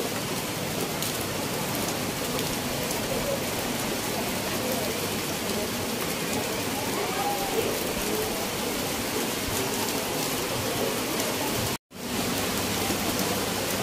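Steady rain falling on wet ground and roofs, an even hiss, that cuts out for a moment about twelve seconds in.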